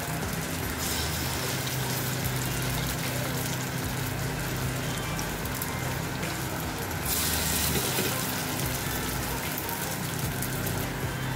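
Oil sizzling in a hot appe (paniyaram) pan, a steady hiss over a faint low hum, with a louder burst of sizzling about seven seconds in.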